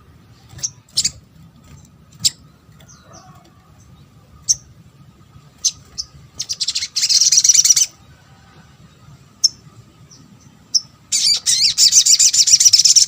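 Sogon (spiderhunter) calls: scattered single sharp, high chirps, then a fast rattling trill about six and a half seconds in lasting about a second, and another loud rattling trill from about eleven seconds on.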